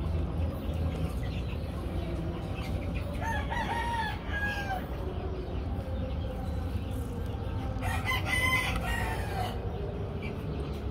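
A rooster crowing twice, once about three seconds in and again about eight seconds in, each crow lasting a second or more, over a steady low background rumble.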